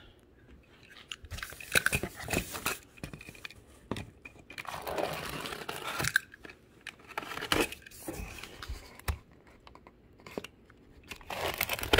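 Box cutter slitting clear packing tape on a cardboard box, with irregular scraping, crinkling and clicks as the cardboard flaps are handled and pulled open.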